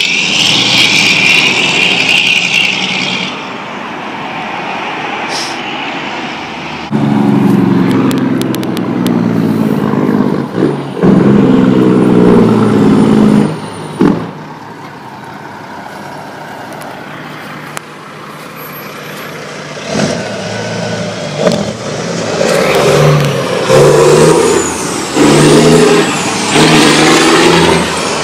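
Heavy diesel semi-trucks passing, with a loud hiss at the start. About seven seconds in, a truck's engine brake (Jake brake) sounds as a loud, rapid blatting in two bursts of a few seconds each. From about twenty seconds on, truck engines come in repeated loud pulsing bursts.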